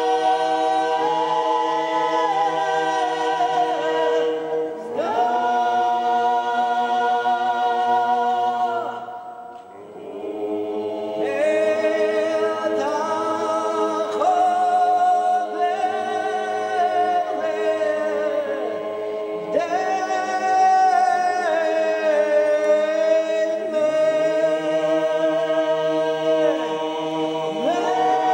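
A young girl's solo voice singing with a men's choir, unaccompanied, in Orthodox church chant. Long held notes over sustained lower voices, with a short break about nine seconds in.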